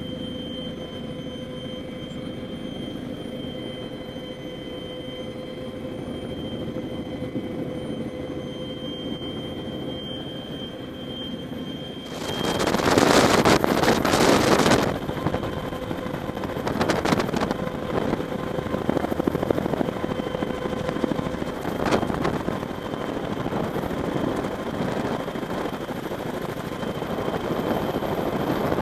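CH-46 Phrog tandem-rotor helicopter heard from aboard, running steadily with a high turbine whine over the rotor noise. About twelve seconds in, wind blasts across the microphone for about three seconds, and the noise stays louder and gustier after.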